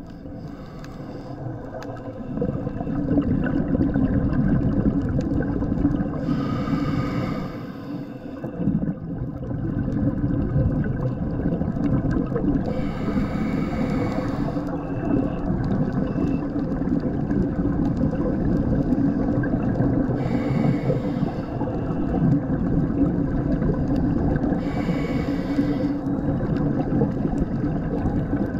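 Underwater sound of a scuba diver breathing: hissing rushes of regulator exhaust bubbles, about every six seconds, each lasting a second or two, over a steady low rumble.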